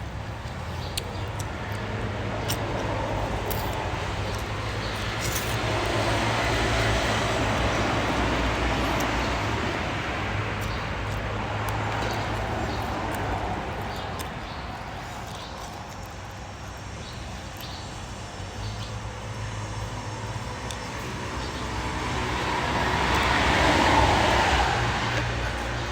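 Road traffic: vehicles passing one after another, their noise swelling and fading, the loudest pass near the end, over a steady low hum.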